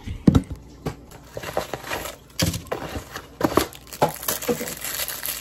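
Plastic wrapper of a Hot Pocket crinkling as it is handled close to a phone microphone, with scattered knocks and bumps from the phone being moved about.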